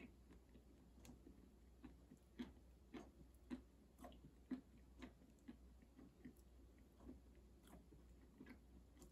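Faint, steady chewing of a mouthful of bread with coarse-ground peanut butter: soft, moist mouth clicks and smacks about twice a second, the peanut grains giving a slight crunch.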